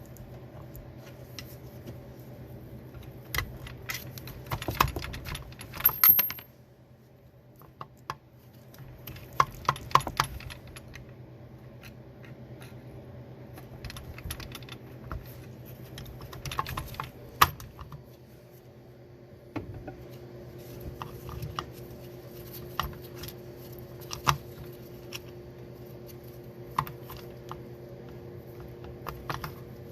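Small metal parts of a manual-transmission gear selector clicking and clinking as they are handled and fitted together, in scattered clusters of sharp clicks. A steady low hum runs underneath, with a higher steady tone joining about two-thirds of the way through.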